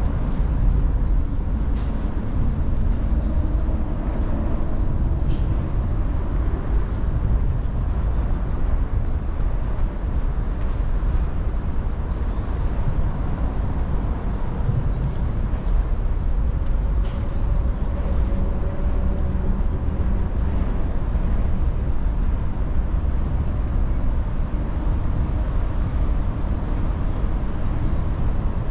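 Urban street ambience: a steady low rumble of traffic, with the faint hum of a passing engine now and then.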